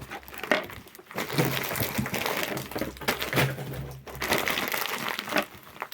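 Rustling and crinkling of plastic packaging, with light clicks and knocks, as small boxed items are handled.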